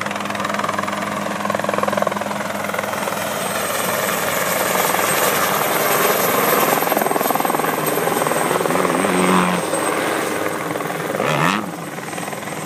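Turbine-powered Helicycle kit helicopter hovering low and passing close, with a steady rotor chop and a thin, high turbine whine. It grows louder through the middle as it nears, then falls off sharply near the end.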